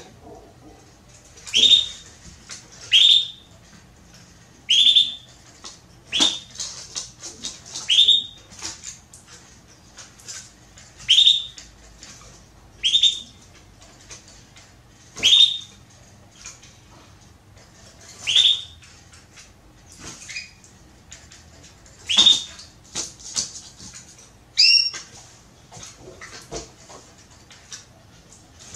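Female Belgian canary (domestic canary) giving short, sharply upslurred high calls, repeated every one to three seconds with a few fainter notes between: the calling of a hen canary asking to be mated.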